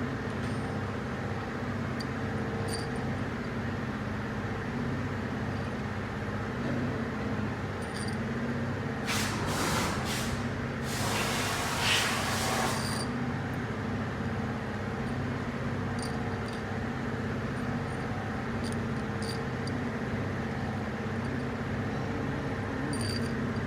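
Steady low machine hum, with two bursts of hissing about nine and eleven seconds in and a few faint light clicks.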